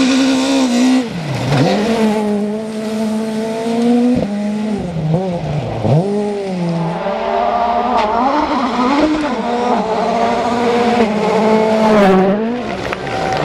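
Rally car engine held at high revs, its pitch dropping sharply and climbing back several times as the revs fall and rise again between gear changes and lifts.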